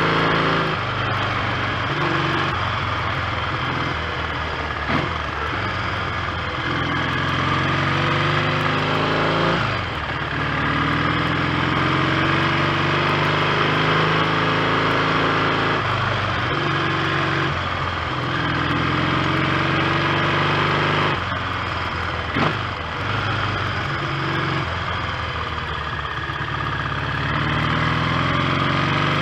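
A 1970 Triumph T100C's 500 cc parallel-twin engine running on the road. Its pitch climbs steadily, then breaks and drops several times, as with gear changes.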